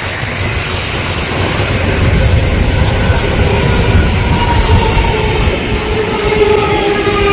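Odakyu 4000 series electric train pulling in alongside the platform: a loud, steady rumble of wheels on rail. From about halfway, a whine of several steady tones rises above the rumble.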